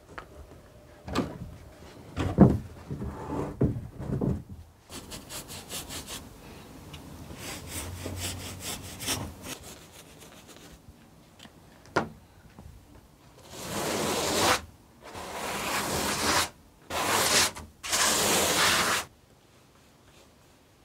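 Hand-sanding a panel coated with sandable, cement-filled acrylic paint: a few knocks, then quick short rasping strokes, then four longer, louder strokes near the end.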